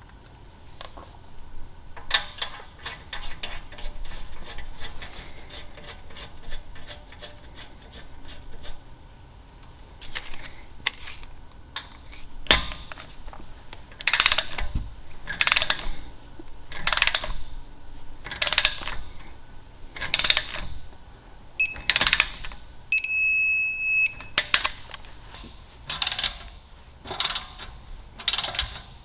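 Socket ratchet clicking as wheel studs are run into a car's wheel hub: quick runs of fine clicks at first, then repeated ratcheting strokes about every second and a half. A steady electronic beep sounds for about a second near the end.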